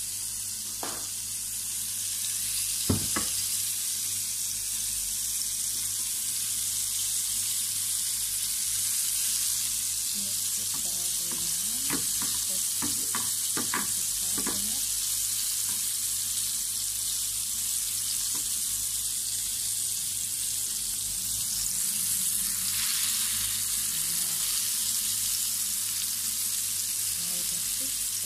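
Egg-and-flour-coated fish fillets sizzling steadily in hot oil in a frying pan. There is a sharp knock about three seconds in and a few light clicks around halfway through.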